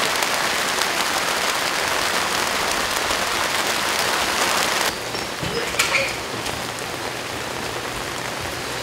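Steady rain falling, an even hiss. About five seconds in it turns quieter, with a few separate drips heard.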